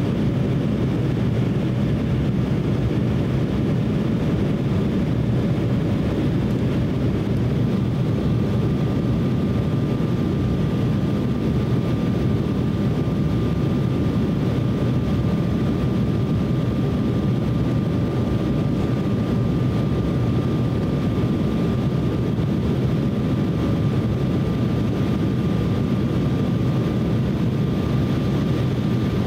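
Steady cabin noise inside an Embraer E170 airliner in flight: the drone of its two GE CF34 turbofan engines and rushing airflow, deepest in the low range. A faint steady high tone joins in about eight seconds in.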